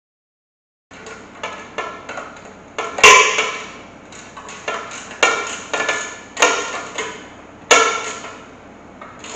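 Sharp metal clanks and knocks, some ringing briefly, as the steel legs and wheel brackets of a chicken plucker's base are handled and fitted; they start after about a second of silence, come at irregular intervals, and the loudest falls about three seconds in.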